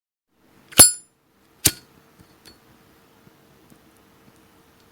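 Brushed brass Zippo lighter's hinged lid clicking twice, a little under a second apart, the first with a bright metallic ring.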